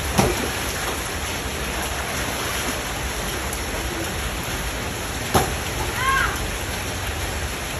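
Steady heavy rain falling on a flooded courtyard, with a couple of sharp splashes as children run and drop into the shallow floodwater, and a brief child's call about six seconds in.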